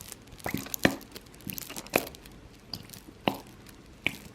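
Small plastic containers and ingredient packets being handled: a handful of sharp clicks and taps, spaced irregularly, with some crinkling.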